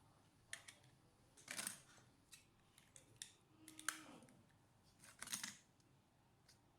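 Faint clicks and scrapes from small laptop parts being handled, a handful of short sharp sounds spaced about a second apart.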